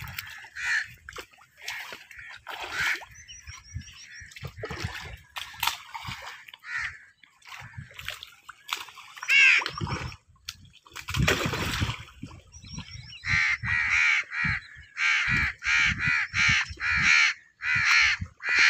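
Crows cawing, scattered at first and then in a quick run of about ten calls, roughly two a second, over the last five seconds. There is a brief rush of noise about halfway through and a little splashing from the pond water.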